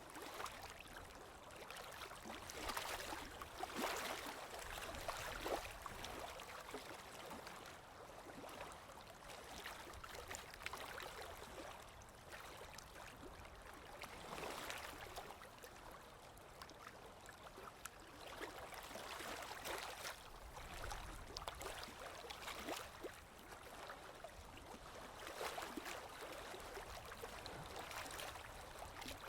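Sea waves washing in: a steady hiss of water that swells and eases every few seconds as each wave comes in.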